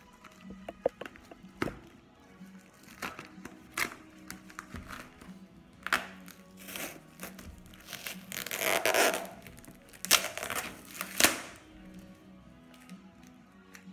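Plastic invoice sleeve and paper crinkling and tearing as a craft knife cuts the sleeve open on a cardboard box and the papers are pulled out. Irregular crackles, a longer rustle about two-thirds of the way through, then two sharp crackles, over faint background music.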